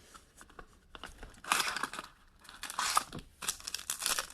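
Trading-card pack packaging being torn open and crinkled by hand, in several short crackling bursts after a quiet first second or so.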